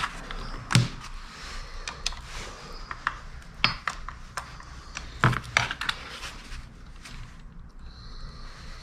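Clicks and knocks from a screwdriver and the plastic housing of a Homelite Super 2 chainsaw being handled and set down on a workbench, with two louder knocks, about a second in and about five seconds in.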